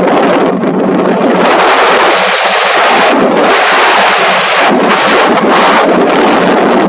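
Motorboat under way: loud, steady rushing of wind on the microphone and water over a low, even engine hum.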